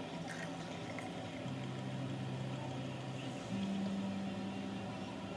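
Peach sparkling wine poured from the bottle into a glass flute, fizzing faintly. It sits under background music whose held low bass notes step between a few pitches and are the loudest sound.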